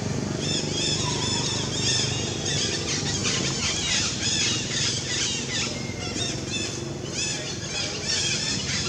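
Infant long-tailed macaque giving a rapid series of short, high-pitched squeals, over a steady low background rumble.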